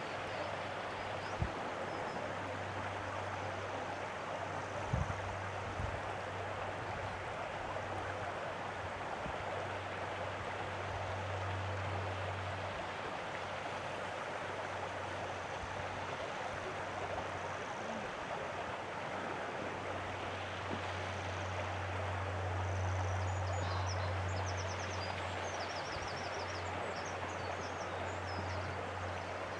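Steady rush of water with a low rumble beneath it that swells twice. A small bird chirps a quick run of high notes near the end.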